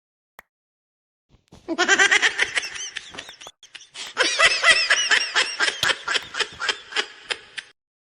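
High-pitched laughter in quick repeated bursts, starting about a second and a half in and breaking off near the end.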